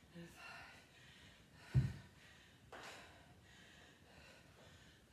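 A kettlebell set down on a rubber gym floor with one heavy thud about two seconds in, amid breathing after a set of kettlebell deadlifts.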